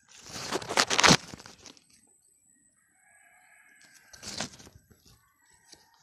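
Leafy weeds and stems rustling and crunching as they are pushed through and handled at close range: a burst lasting about a second and a half near the start and a shorter one about four seconds in.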